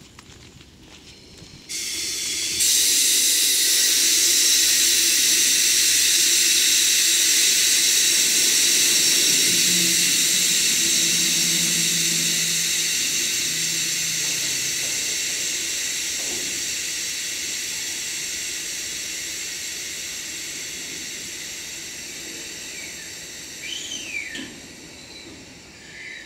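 Compressed air venting from the air-brake system of a train of rail-carrying flatcars: a loud, steady hiss that starts suddenly about two seconds in and slowly dies away as the air runs out.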